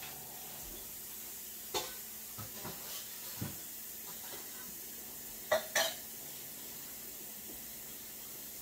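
Dishes and utensils clinking and knocking at a kitchen sink: a few scattered clatters, with the two loudest close together about five and a half seconds in, over a steady background hiss.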